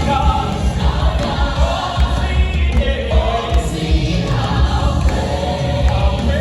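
Church congregation and choir singing gospel worship music, with a band and a heavy steady bass underneath.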